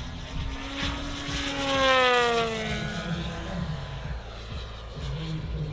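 Large-scale RC Spitfire model's propeller engine passing by on a low pass, growing louder and then dropping in pitch as it goes past, loudest about two seconds in.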